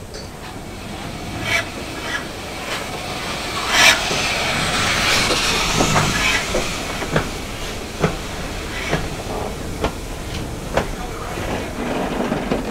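BR Standard Class 9F 2-10-0 steam locomotive pulling slowly away at close range. There is one loud exhaust beat with hissing steam about four seconds in, then sharp clicking beats about once a second as the driving wheels and tender roll past.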